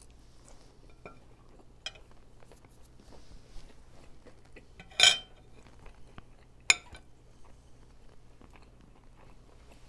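A metal fork clinking against a plate, with two sharp clinks about halfway through and again a second and a half later, and quiet chewing and small taps between.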